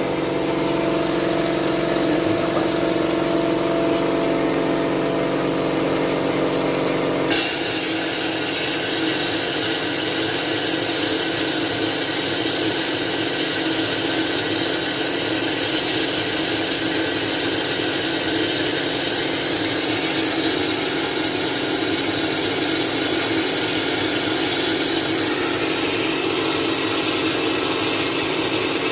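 Vapor blasting machine at work. A steady machine hum with held tones runs for about seven seconds, then changes abruptly to a loud, steady hiss as the blast of water, sand and air is sprayed onto motorcycle engine parts.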